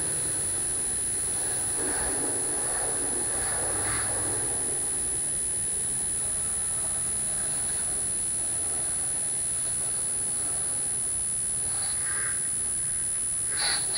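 Garden hose spray rinsing soap off a car body: a steady rushing hiss of water, with a steady high-pitched whine over it.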